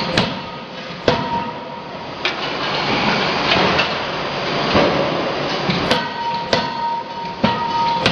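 CNC fully hydraulic die forging hammer striking a red-hot workpiece in the die: several sharp blows at uneven intervals, over a steady high hum and a rushing noise from the machine.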